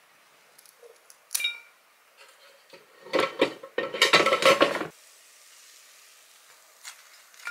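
Clinks and clattering as a tornado-potato skewer is fitted into an air fryer basket: one sharp ringing clink about a second and a half in, then a run of rattling clatter from about three to five seconds, and a last small clink near the end.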